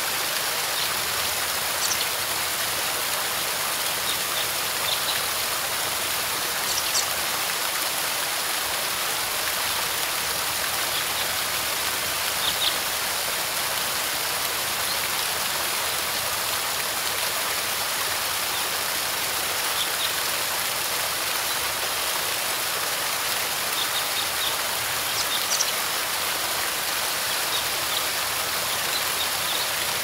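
Waterfall rushing steadily, with brief high bird chirps now and then.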